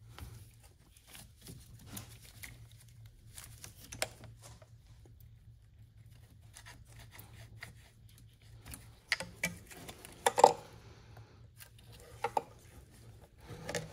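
Hand work on rubber coolant hoses and a spring hose clamp with pliers: scattered small clicks, scrapes and rubbing, with a sharper clack about ten seconds in. A low steady hum runs underneath.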